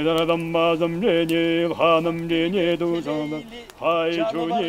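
A man's voice chanting a prayer in a steady low drone, holding mostly one note in phrases, with two short pauses.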